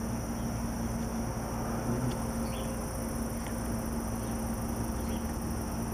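Steady chorus of insects shrilling, with a low steady hum underneath.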